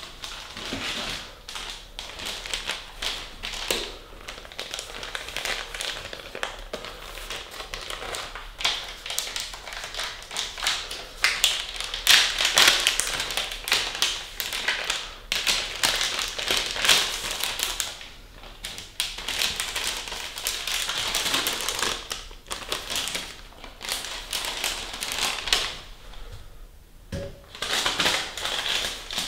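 Sterile surgical glove packet being peeled open and its paper wrap unfolded and handled: a continuous run of crinkling and rustling paper broken by many small taps and clicks.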